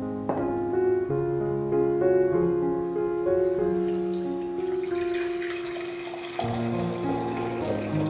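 Background music with held notes throughout. About four seconds in, a thin stream of drinking water starts pouring into a glass measuring jug and splashes as the jug fills.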